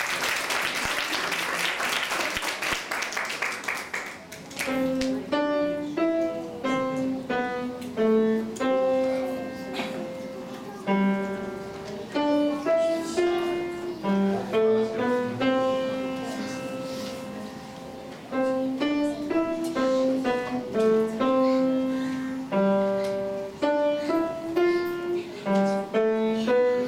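Applause for the first few seconds, then a grand piano played by a young child: a simple tune of clearly separated notes, each struck and fading, at a steady unhurried pace.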